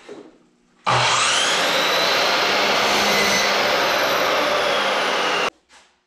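Electric miter saw starting up with a rising whine and running loud and steady while cutting a cedar 2x2 to length, then cutting off suddenly near the end.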